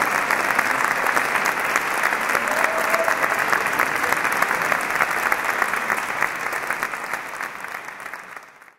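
Audience applauding with dense, steady clapping that fades away and stops near the end.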